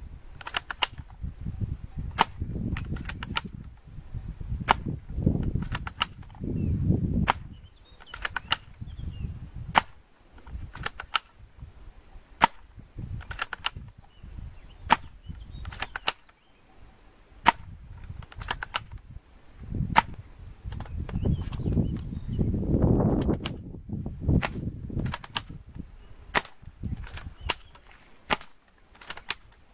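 Airsoft guns firing: a long series of sharp snapping shots, single and in quick pairs, irregularly spaced about a second apart, with low rumbling noise swelling in between.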